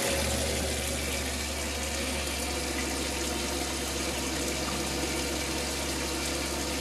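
Kitchen faucet running a steady stream of water into a stainless steel sink, filling it to test the new drain plumbing for leaks. A steady low hum sounds underneath.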